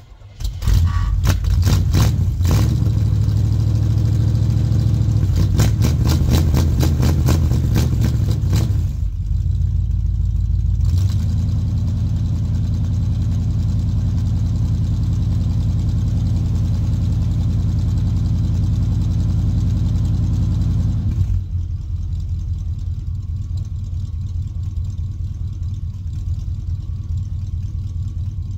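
1978 Chevrolet Suburban engine cold-started after sitting all winter: it fires almost at once and runs loud and uneven for about the first nine seconds. It then settles into a steady fast idle, which drops to a lower, quieter idle at about twenty-one seconds.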